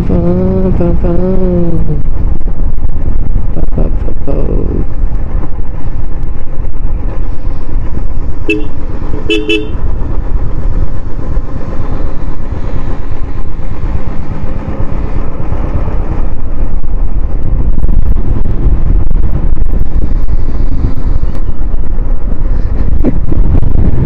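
Motorcycle on the move: a loud, steady low rumble of wind and engine on the rider's microphone. About nine seconds in, a vehicle horn gives three short beeps, the last two close together.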